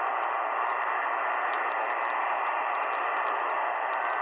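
Shortwave receiver hiss with faint crackle: band static on an open 40-metre sideband frequency where no station is transmitting. A faint steady whistle comes in near the end.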